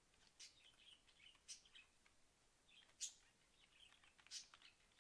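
Near silence with faint, irregular clicks of computer keyboard typing, a few sharper ones about a second and a half apart.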